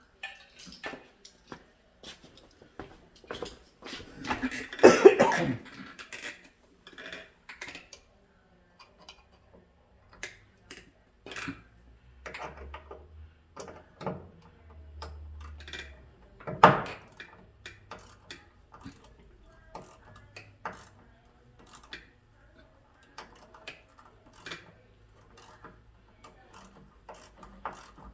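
Scattered clicks and knocks of hand tools on metal as a thread tap is worked into a stripped hinge-bolt backing plate, with a louder burst about five seconds in.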